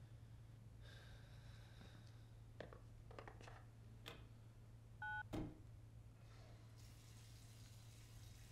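Cordless phone handset being handled and its buttons pressed: a few soft clicks, then about five seconds in a single short two-tone dialing beep from a key press, followed by a click. A low steady hum runs underneath.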